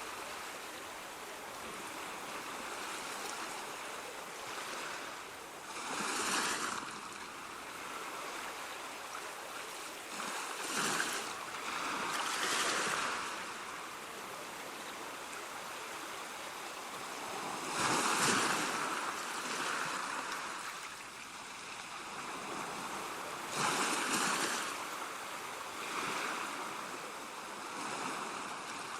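Sea waves breaking in surf: a steady wash of water with several separate waves surging in and falling back, a few seconds apart.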